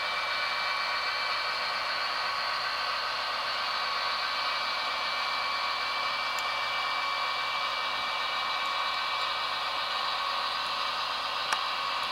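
Roco H0-scale TEE RAm diesel railcar model running, its ESU sound decoder playing the diesel engine sound through a tiny onboard speaker, heard as a steady thin hiss with no low end and a faint high whine running through it. One sharp click near the end.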